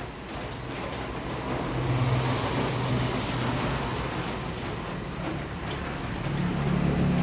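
Road traffic: a motor vehicle's engine hum and tyre noise, swelling to its loudest about two seconds in as it passes, with another engine coming up near the end.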